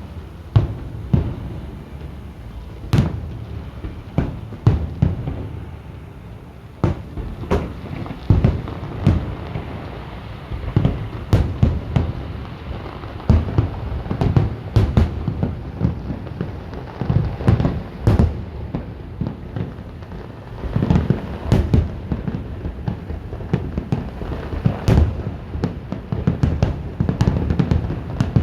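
Fireworks display: aerial shells bursting in quick, irregular succession, many sharp bangs over a continuous low rumble and crackle.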